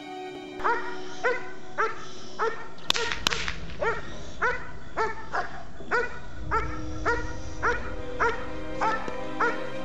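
German Shepherd police dog barking at a man with a stick in protection work, a steady run of barks nearly two a second, starting just under a second in. Two sharp cracks come around three seconds in, and background music plays under the barking.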